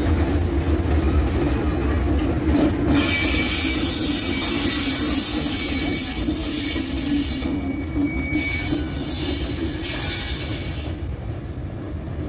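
Container freight train rolling past on steel rails: a steady low rumble of the wagons, with thin high-pitched wheel squeals coming and going. It grows slightly fainter toward the end as the train passes.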